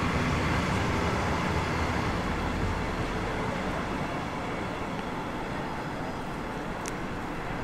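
Steady rumble of a train running along the track, slowly fading.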